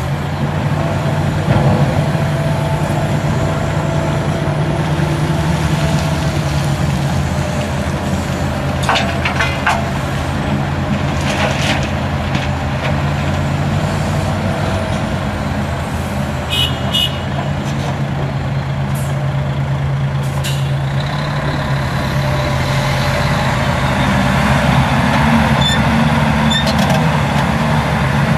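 Diesel engines of a Hitachi Zaxis 350LCN excavator and a four-axle dump truck running steadily. Several sharp knocks and clatters come midway as soil and stones are dropped into the truck's steel tipper body. Near the end the truck's engine rises as the loaded truck pulls away.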